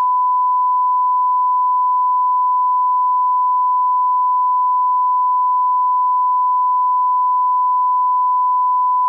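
A steady 1 kHz sine-wave reference tone, the broadcast line-up tone played with SMPTE colour bars for level calibration.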